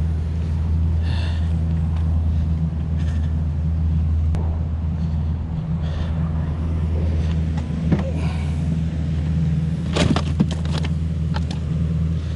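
Steady low rumble, with a cluster of sharp plastic knocks and clatters about ten seconds in as a picnic cooler's lid is opened and a fish is put inside.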